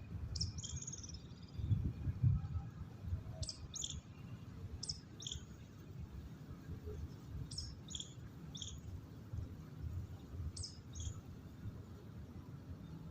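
A bird giving short, high chirps in quick pairs and triplets, repeated every few seconds, over a steady low rumble.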